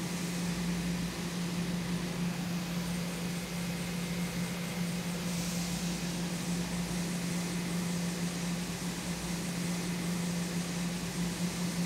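CNC lathe facing titanium bar stock with a carbide turning insert under flood coolant: a steady machine hum under an even hiss of coolant spray.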